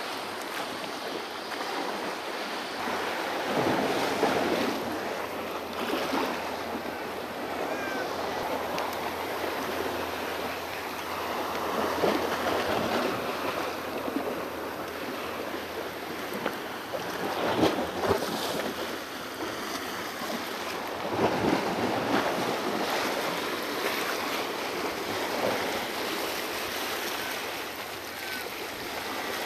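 Small harbour waves washing over a rock shelf and draining back off it, swelling and falling every few seconds, with some wind on the microphone.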